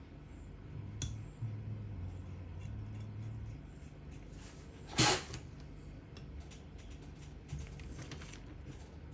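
Small clicks and taps of metal carburetor parts as the rebuilt choke plunger assembly is pushed into a Yamaha XT500 carburetor body by hand. There is one short, louder noisy burst about five seconds in, over a steady low hum.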